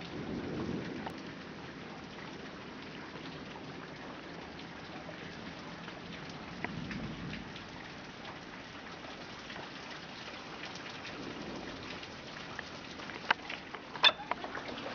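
Steady rain from a tropical storm, with low rumbles swelling up three times. A few sharp, loud taps come near the end.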